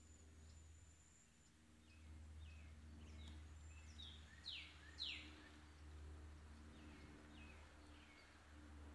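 Quiet outdoor ambience with a low steady rumble and a bird's short, downward-sweeping chirps, repeated every half second or so, two of them louder about halfway through.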